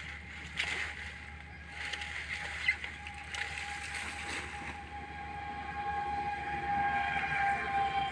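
Feet sloshing through shallow muddy water, several wading steps in the first half. Beneath them a steady distant tone holds throughout and grows louder toward the end.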